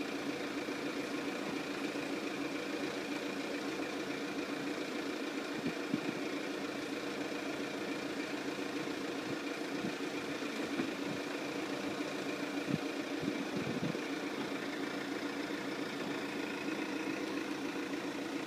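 Mercedes SLK with its retractable hard top closing, giving a steady mechanical hum with a couple of light clunks about six and thirteen seconds in.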